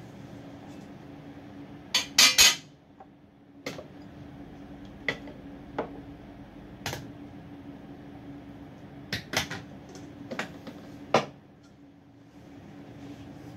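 Hard items on a bathroom vanity counter clinking and knocking as they are lifted and set down while the counter is wiped. There is a loud cluster of knocks about two seconds in, then single clinks every second or so, over a steady low hum.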